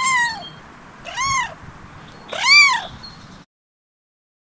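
Kitten meowing three times, about a second apart, each call rising and then falling in pitch; the third meow is the loudest.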